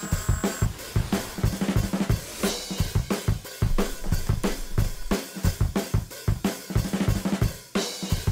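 Background music with a busy, steady drum-kit beat: kick drum, snare and cymbals.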